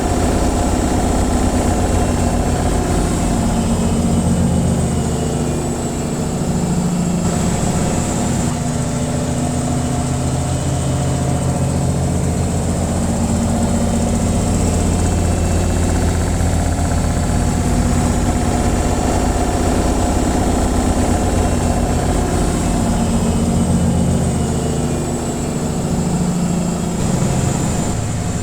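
Washing machine on its spin cycle: a steady motor hum and drum vibration that slowly swells and eases, with a faint high whine above it.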